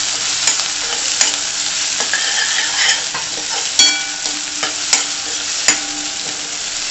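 Chopped onion sizzling in hot oil in a steel kadhai, stirred with a metal spatula that scrapes and taps the pan. Several sharp taps, the loudest in the second half, leave a brief metallic ring.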